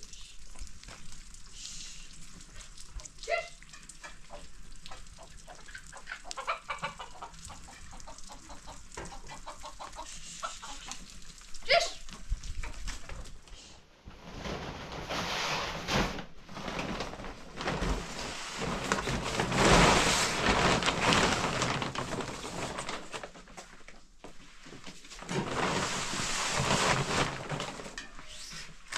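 Domestic chickens clucking, with short calls about three seconds in and just before twelve seconds, then a loud rushing noise that swells up from about fourteen seconds and again near the end.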